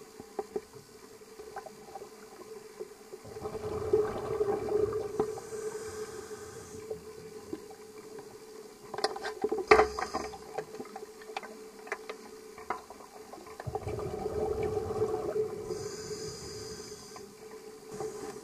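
A scuba diver's exhaled breath bubbling out of the regulator, twice, each rush lasting about three seconds and recorded underwater through the camera housing. Between the two breaths comes a cluster of clicks with one sharp knock, over a steady hum.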